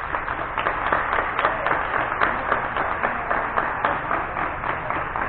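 A group of people applauding: many hands clapping together in a dense, irregular patter.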